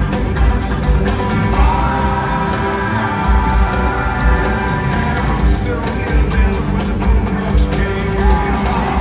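Live rock band playing a song in an arena, heard from among the audience: a steady drum beat with a heavy kick, bass, electric guitars and organ, with singing over the top.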